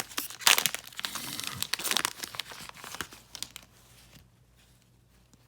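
A trading-card pack wrapper being torn open and crinkled, a dense crackling that stops about three and a half seconds in.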